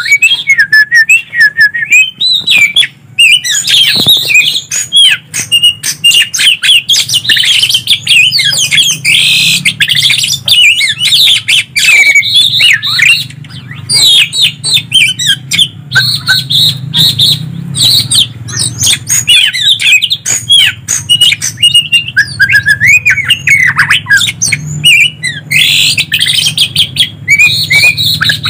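Green leafbird (cucak ijo) and oriental magpie-robin (kacer) singing loudly and almost without a break. The song is a dense stream of rapid whistled phrases that glide up and down, with many sharp clicks, over a faint low steady hum.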